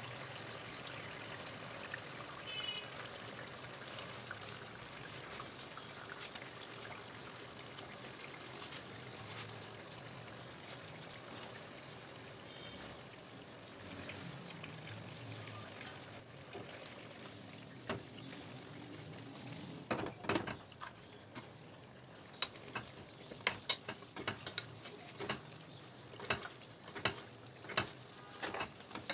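Yogurt-and-masala gravy simmering and sizzling in a nonstick pan as fish pieces are laid into it, a steady bubbling hiss. From about two-thirds of the way in, sharp pops and ticks come thick and fast.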